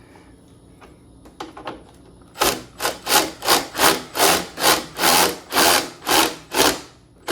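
Rhythmic back-and-forth scraping strokes, about three a second, like filing or wire-brushing, starting a little over two seconds in after a few faint ticks.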